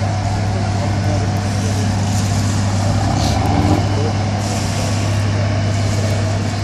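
Fire truck engine running steadily, a constant low hum with a rushing noise over it.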